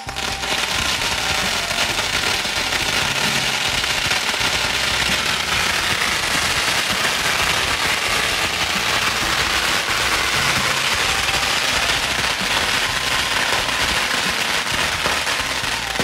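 A long run of firecrackers going off on the ground: a dense, unbroken crackle of rapid small bangs at a steady loudness.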